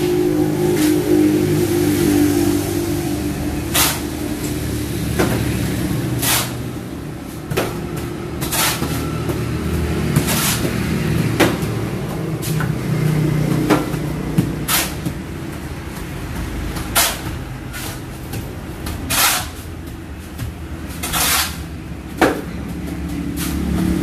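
A small engine running steadily, with sharp knocks and scrapes at irregular intervals every second or two, as of hand tools or material striking on a building site.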